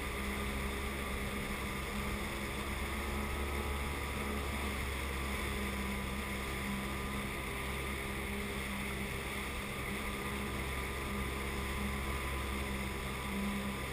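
Sea-Doo personal watercraft engine running at a steady speed while underway, an even drone with a constant low hum.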